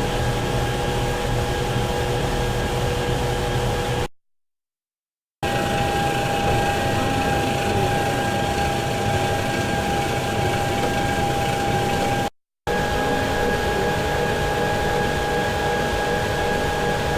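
Steady industrial machinery hum with a constant whine over a low rumble, in three separate stretches that cut off abruptly: a second of silence after about four seconds, and a brief break about twelve seconds in.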